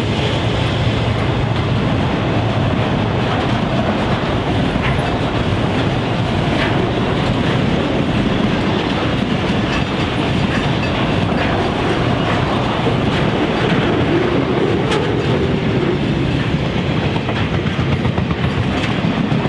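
Intermodal freight train's container wagons rolling past, a loud steady rumble of steel wheels on rail with scattered clicks and clacks.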